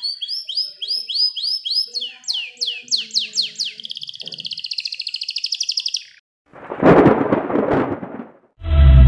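Canary singing: repeated quick whistled sweeps, then a fast, even trill (a long roll) about four seconds in. The song cuts off at about six seconds; a rushing whoosh with a low rumble follows for about two seconds, and loud music starts near the end.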